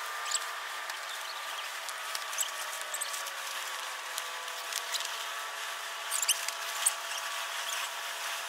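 Small pebbles and shell fragments clicking and ticking as fingertips sift through beach gravel, in scattered light taps with a few sharper ones about six to seven seconds in. Under them runs a steady hiss with a faint steady hum.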